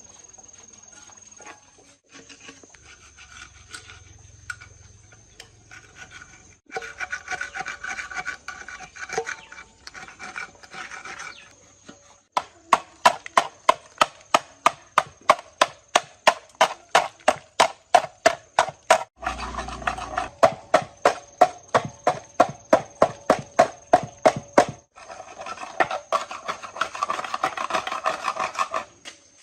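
Rasping strokes of hand abrasive work on a part, in several stretches: continuous rubbing at first, then quick sharp strokes about three a second, then continuous rubbing again.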